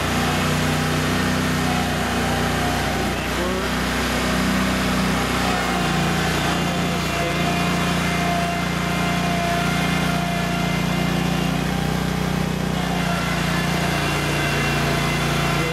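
Engine of a remote-controlled prototype compact tracked loader running steadily as the machine drives and turns.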